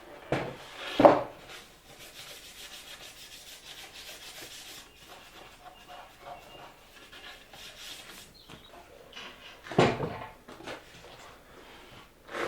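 Wooden boards being handled and rubbed or slid against one another, with loud knocks about a second in and again near the ten-second mark.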